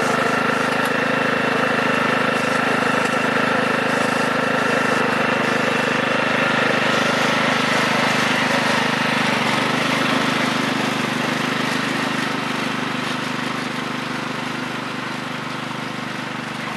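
Craftsman riding mower's 15 hp Kohler Command single-cylinder OHV engine running steadily. About ten seconds in its note drops, and it then slowly gets quieter.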